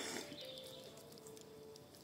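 Brush fire in a fire bowl crackling, with scattered small pops and a louder burst of crackle at the very start.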